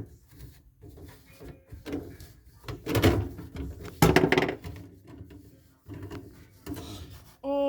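Irregular knocks, scrapes and rattles of plumbing drain parts being handled and pushed into place, with two louder scraping bursts about three and four seconds in.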